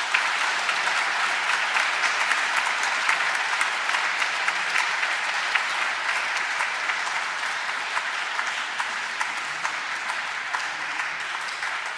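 A large congregation applauding: sustained, dense clapping that eases off slightly toward the end.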